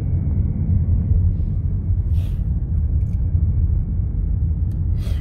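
Steady low rumble of road and engine noise inside a moving car's cabin, with a brief faint hiss about two seconds in.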